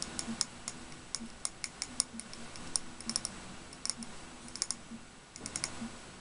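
Fingernails tapping on a glass candle jar: quick, irregular clicks, several a second, with a brief pause about five seconds in.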